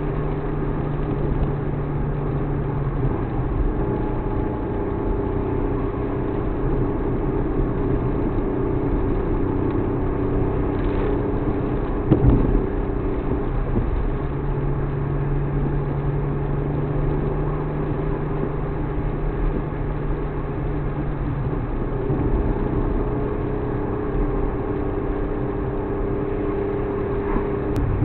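Suzuki Alto Works HA36S, with its 660 cc turbocharged three-cylinder, running steadily on the move, engine drone over road noise. One sharp knock about twelve seconds in.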